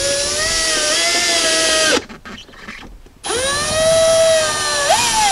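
Cordless drill driving #8 self-tapping screws into a plastic center console. Its motor runs in two bursts of about two seconds each, with a short pause between them, and the whine jumps briefly in pitch just before the second burst stops.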